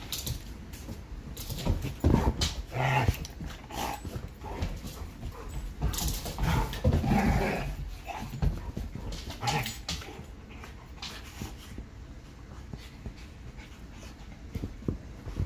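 Two dogs play-fighting: dog vocal sounds mixed with scuffling and knocks, busiest in the first eight seconds and quieter after.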